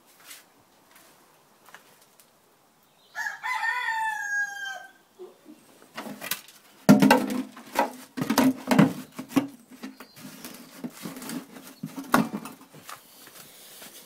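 A rooster crows once a few seconds in: a single call of about a second and a half, falling slightly at the end. After it comes a run of knocks, scrapes and rustling, loudest around the middle.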